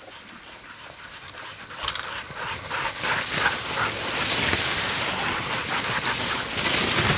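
Husky sled team running past: dogs panting, with the hiss of sled runners on snow growing louder as a sled passes close near the end.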